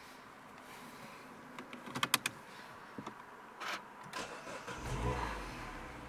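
A few sharp clicks of controls in the car, then about five seconds in the MINI Hatch's 1.6-litre four-cylinder engine is started with the push button: a low rumble swells as it catches and settles to a steady idle.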